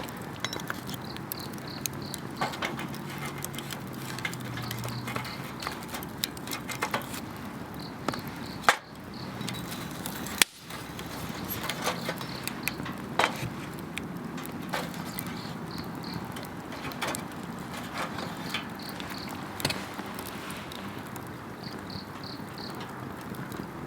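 Wood campfire crackling with frequent sharp pops, two louder ones about 9 and 10 seconds in, over insects chirping in short repeated pulses.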